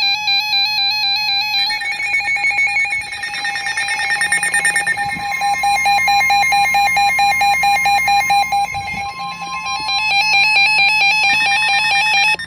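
Several NOAA weather radios going off together for a severe thunderstorm warning. Their alarms overlap as warbling electronic tones and fast, even beeping, and a steady tone joins about three seconds in. It all stops abruptly near the end.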